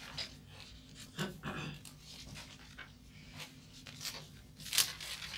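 Paper handling: pages of a textbook being turned and loose sheets rustling in short strokes, with the loudest rustle near the end.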